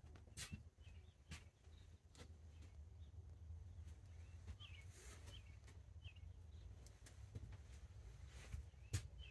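Near silence: a low hum with scattered faint clicks and a few short, faint chirps.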